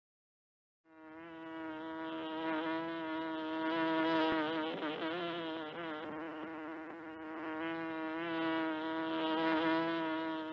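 A flying insect buzzing, starting about a second in. The buzz holds one steady pitch that wavers at times, and it grows louder and softer as the insect moves about.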